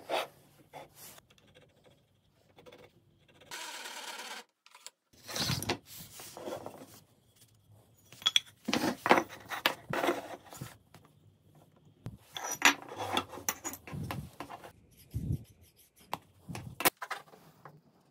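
Handling sounds of a walnut board and aluminium jig parts being set in place and clamped with a mini bar clamp: scattered knocks, taps and rubbing, with a steady hiss lasting about a second near the start.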